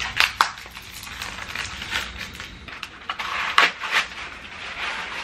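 Corrugated cardboard and paper wrapping rustling and crinkling as a package is unwrapped by hand, with a few sharp crackles along the way.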